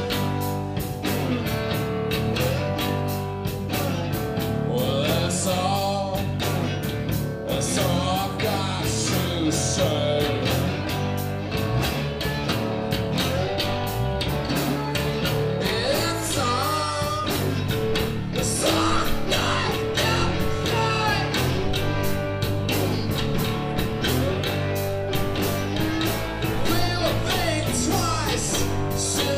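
Live rock band playing: electric bass, electric guitar and drum kit, with a man singing into a microphone.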